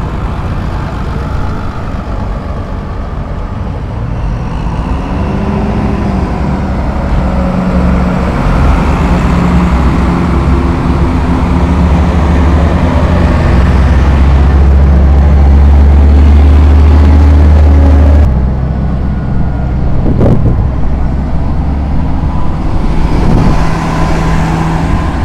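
Diesel farm tractors driving past close by in a procession, a loud low engine rumble that builds to its loudest and then drops abruptly about 18 seconds in. A single sharp knock follows about two seconds later.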